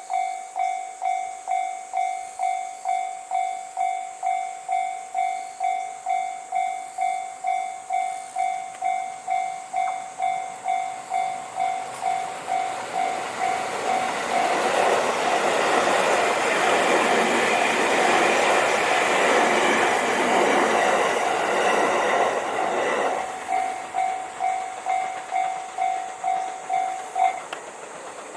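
A Japanese railway level-crossing warning bell ringing steadily, about two dings a second. About halfway through, the 285 series Sunrise Izumo electric sleeper train passes for about nine seconds and its running noise covers the bell. The bell rings on after the train and stops near the end.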